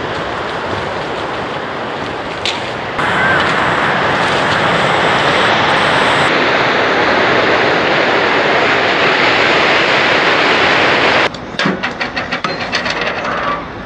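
Ocean surf breaking on a beach with wind buffeting the microphone, getting louder about three seconds in as the track opens onto the beach. It cuts off abruptly near the end and gives way to a quick run of rattling knocks.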